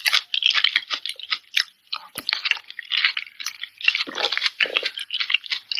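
Close-miked chewing of juicy fresh fruit: wet mouth sounds with many quick, irregular crackles as the soft, ripe flesh is bitten and chewed.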